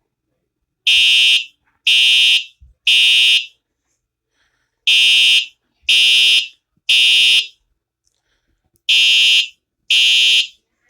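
Fire alarm horn sounding in the temporal-three evacuation pattern: three short, buzzing blasts about a second apart, then a pause, repeating.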